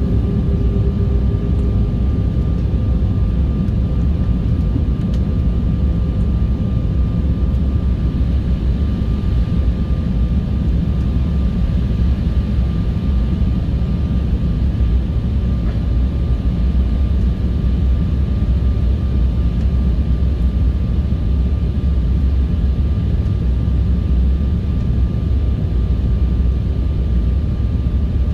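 Jet airliner cabin noise in flight: a steady low rumble of engines and airflow heard from a window seat, with a faint high steady whine running under it.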